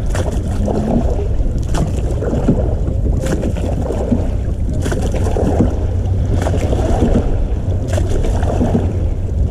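A small motorboat running, its engine a steady low rumble, with wind buffeting the microphone.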